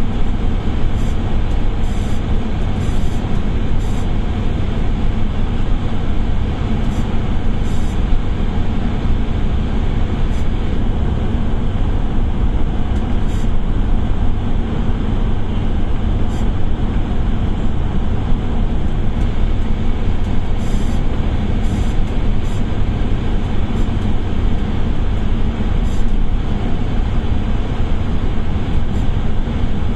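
Steady engine and tyre rumble inside a bus cabin driving through a road tunnel, with a few faint, brief ticks now and then.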